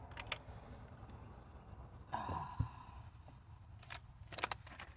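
A person gives a short, frustrated sigh about two seconds in, between a few sharp clicks and knocks from handling, one cluster of them near the end.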